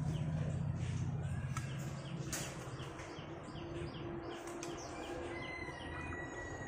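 Small birds chirping in quick repeated calls over a low steady hum, with a single sharp clink about two and a half seconds in.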